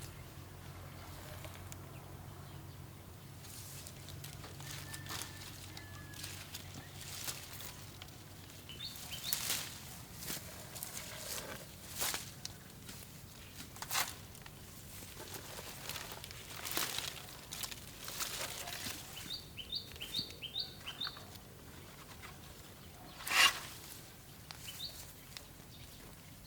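Outdoor scene with scattered sharp snaps and rustles, the loudest a little before the end. A small bird chirps a few quick high notes about nine seconds in, and again in a run of about five notes around twenty seconds in.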